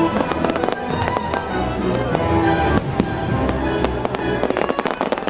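Aerial fireworks bursting in a quick run of bangs, several a second, over the fireworks show's music.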